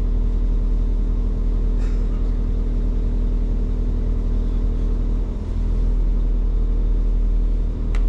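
Diesel multiple-unit train's underfloor engine idling while the train stands at the platform, a steady low rumble heard inside the carriage, with brief dips in level about five seconds in and near the end.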